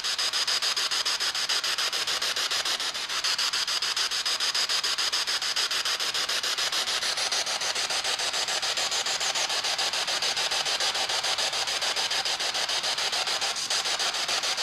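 Spirit box (ghost box) radio scanning through stations: a steady hiss of static chopped into rapid, even pulses, with no voice coming through.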